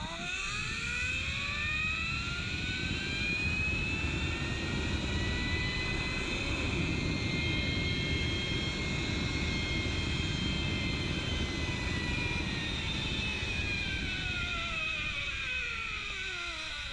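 Zip line trolley pulleys whining along the steel cable during a ride. The whine rises in pitch at the start as the rider picks up speed, holds high and steady, then falls over the last few seconds as the trolley slows. Wind rushes over the microphone underneath.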